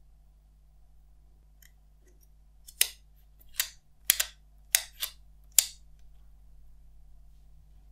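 Fingertips tapping and clicking on the plastic-wrapped cardboard box of an iPhone 11 Pro Max: about seven short, sharp taps spread over some three seconds, starting about three seconds in.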